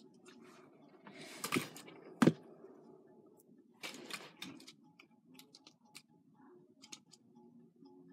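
Faint music from a television in another room, with scattered small clicks and knocks of things being handled. The loudest are two sharp knocks close together about two seconds in.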